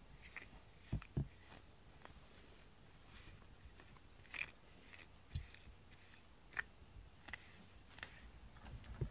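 Rubber grooming brush drawn through a cat's fur in short strokes, a soft scratchy sound heard about a dozen times, with a few dull knocks mixed in.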